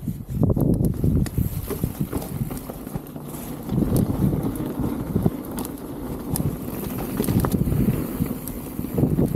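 Specialized Status 160 mountain bike riding over a rough dirt trail: a continuous rumble of the tyres on the ground with many irregular knocks and rattles from the bike. It starts loud right away after a quieter moment.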